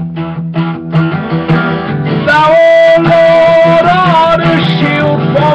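Acoustic guitar strummed in a steady rhythm, about three strokes a second; about two seconds in, a man's singing voice comes in over it, holding one long note that lifts slightly near the end.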